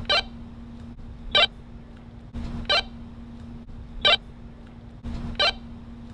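Walkie-talkie radio static with a low hum, broken by a short, bright electronic chirp about every 1.3 seconds, five times in all.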